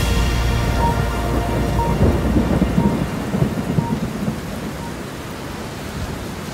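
Thunderstorm: rumbling thunder over steady rain, loudest in the first two seconds and then easing. A faint tone repeating about once a second fades out over the first few seconds.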